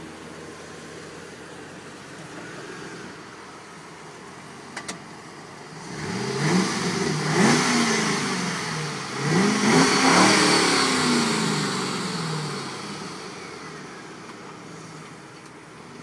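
Ford Mustang engine idling low, then revved hard in two bursts, its pitch climbing and falling several times before settling back down. A short sharp click comes about five seconds in.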